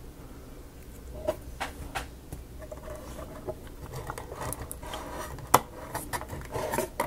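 Scattered small clicks, taps and light scratching of hands fitting the pieces of a miniature book nook kit together, with one sharper click about five and a half seconds in.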